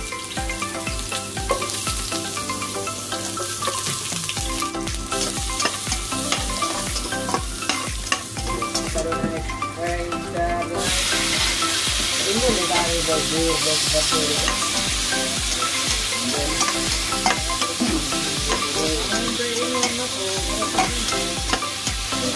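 Garlic, onion and tomato frying in oil in a stainless steel pot, sizzling as they are stirred with a utensil scraping the pot. The sizzle gets louder about halfway through, once the onion and tomato are in the hot oil, over a steady background music beat.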